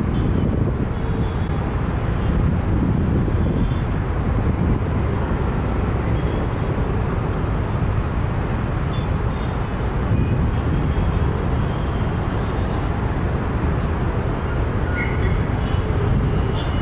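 Jet airliner's engines running, a steady loud rumble.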